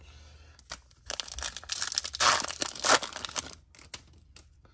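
Foil wrapper of a Bowman baseball card pack being torn open by hand, with a dense crackle of tearing and crinkling foil. It starts about a second in, is loudest in the middle, and dies away about a second before the end.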